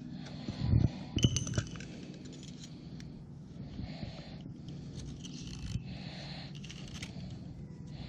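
Utility knife blade scraping and shaving a green salak palm stalk in repeated strokes, with a few sharper knocks and clicks about a second in.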